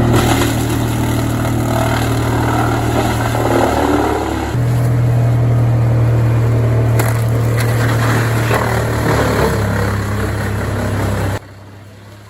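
Large engine-driven wood chipper running under load with a steady heavy drone, with crunching and scraping as branches are shredded. The engine note shifts abruptly about four and a half seconds in and again near ten seconds, and the sound drops away about a second before the end.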